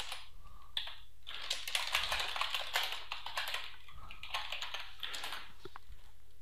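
Computer keyboard being typed on: three quick runs of keystroke clicks separated by short pauses.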